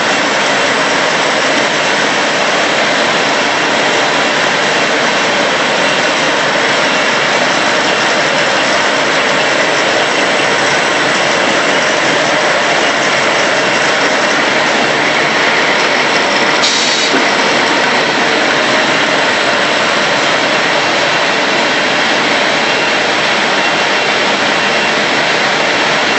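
Automatic A4 paper roll-to-sheet cutting machine running: a loud, steady, dense mechanical noise from its cutting and feeding section, with a short brighter hiss about two-thirds of the way through.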